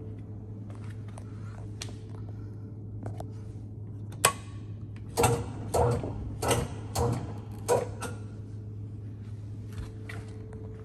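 Small V-shell (twin-shell) powder blender running, its drive giving a steady low hum as the stainless V-shell tumbles. A run of sharp knocks and clunks comes through the middle, the loudest about four to eight seconds in.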